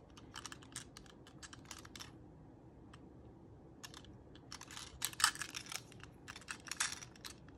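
Quiet, irregular light clicks and taps of small plastic parts being handled, in two clusters with a quieter pause in the middle.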